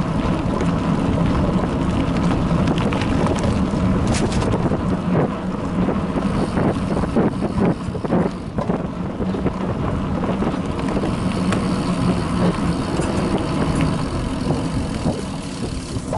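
Bicycle riding over a bumpy dirt forest track, heard through a bike-mounted action camera: steady tyre rumble and wind noise with frequent knocks and rattles as the bike jolts over the ruts, thickest midway.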